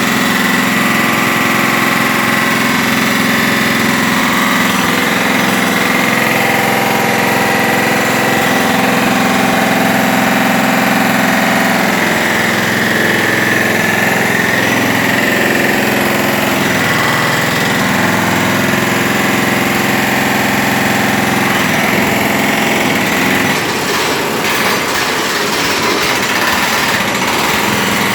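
Case SV185 skid steer's diesel engine running steadily under load while its hydraulic breaker hammers a thick concrete floor. The sound changes a little about 23 seconds in.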